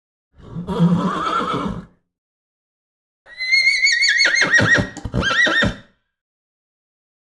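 Horse neighing twice. The first is a short, low-pitched call. The second, about three seconds in, is a long, high whinny that wavers in pitch and breaks up into quick pulses at its end.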